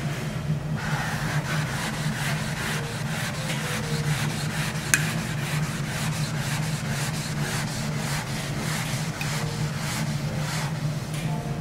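Table knife sawing back and forth through a thick wagyu steak, a rapid rasping scrape stroke after stroke, with a sharper click about five seconds in.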